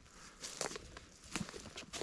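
Footsteps crunching in dry leaf litter: about five short, irregular crunches.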